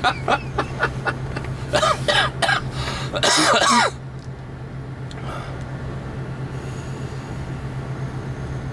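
A man's voice breaks out in a short, loud vocal burst about three seconds in, after some quieter vocal sounds, over the steady low hum of the van's engine.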